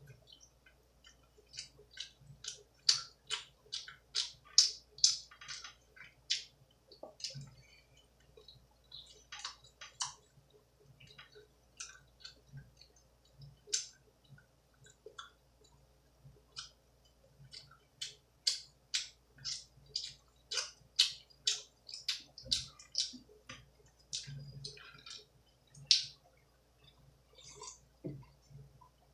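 Close-miked open-mouth chewing of pizza: wet smacking clicks in quick runs of two to four a second, broken by short pauses between bites.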